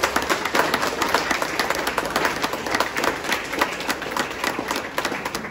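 An audience applauding: many hands clapping at once in a dense, irregular patter.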